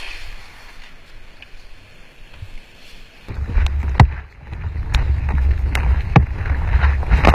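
Surf whitewater rushing around the bow of a plastic creek kayak being paddled out through breaking waves. About three seconds in a heavy low rumble of churning water sets in, broken by several sharp slaps of paddle strokes and water hitting the hull.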